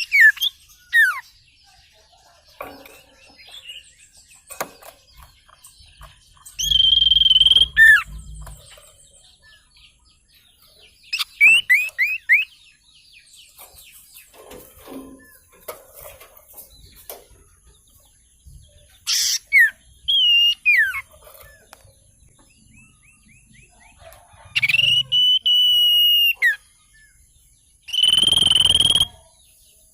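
A wild sirtu songbird singing loud, clear whistled phrases every few seconds: quick series of downslurred notes alternating with single held whistles. It is calling as if to challenge a rival.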